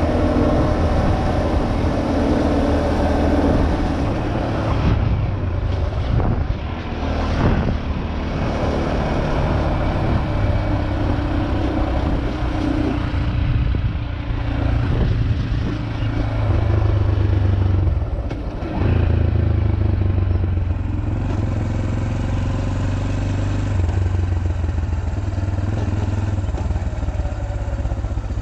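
Motorcycle engine running under way, heard from the rider's onboard camera with wind rushing over it; the engine pitch rises and drops a few times as the rider changes speed.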